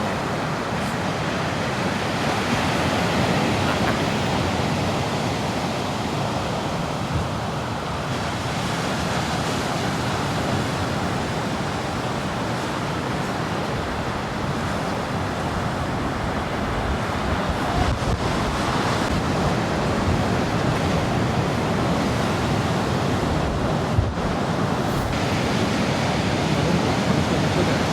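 Ocean surf breaking and washing in steadily, with wind on the microphone.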